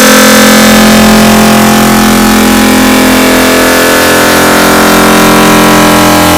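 A sneeze sound effect digitally sped up and stacked over and over on itself, turned into a loud, distorted drone of several steady held tones with hiss on top.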